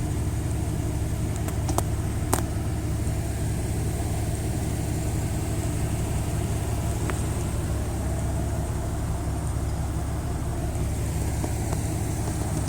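Steady low rumble of a car idling, heard from inside the cabin, with a couple of faint clicks about two seconds in.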